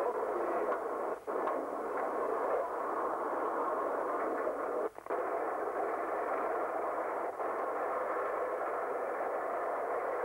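Steady, thin hiss-like noise with no clear pitch, like the background of an old recording. It briefly drops out about a second in and again near five seconds in.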